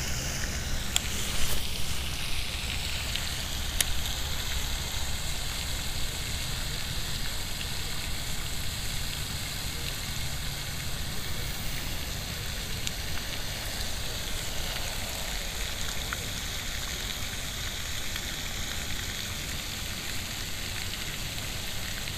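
Steady rain-like hiss of the pond's spray fountain splashing, with a low rumble underneath and a few faint clicks.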